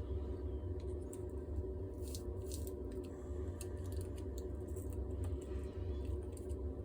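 Small clicks and scrapes of a hair straightener's heating-element assembly being worked by hand out of its tight housing, a cluster of them about two seconds in, over a steady low hum.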